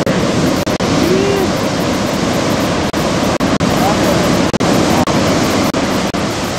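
Loud, continuous rush of breaking surf and whitewater, broken by several brief dropouts.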